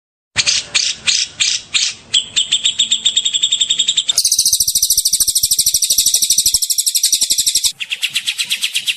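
Songbird song made of rapid shot-like 'tembakan' notes, the kind used in a masteran recording to train young magpie robins. It opens with about six separate sharp, high notes, then goes into very fast high trills that change abruptly twice, about four seconds in and again near the end, as if different recordings were cut together.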